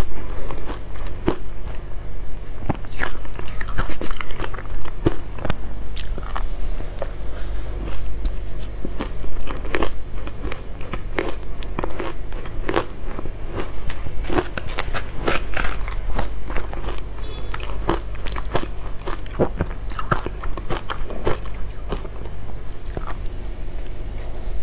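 Close-miked crunching and chewing of frozen matcha ice: many sharp, crisp crunches in quick, irregular succession, over a steady low hum.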